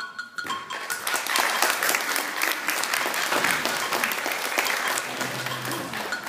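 Audience clapping, starting about half a second in after the music stops, keeping up steadily and thinning near the end.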